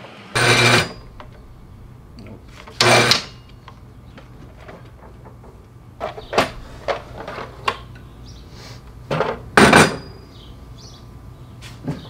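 Workshop handling noise: a series of short clattering knocks of wood and tools at a miter saw bench. The loudest come about three seconds in and near ten seconds in, over a low steady hum.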